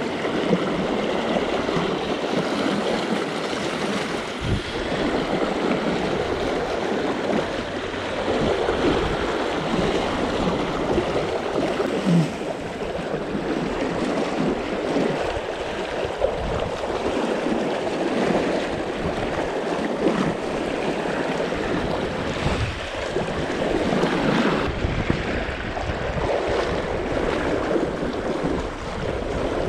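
Steady rush of river water flowing through a riffle, with wind buffeting the microphone in uneven low gusts.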